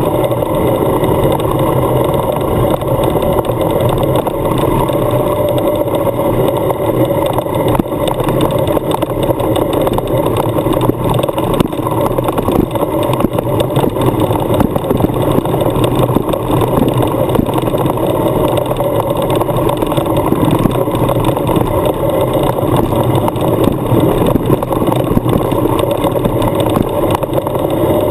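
Adventure motorcycle riding along a gravel road: a steady mix of engine and road noise, even in pace with no marked revving or gear changes.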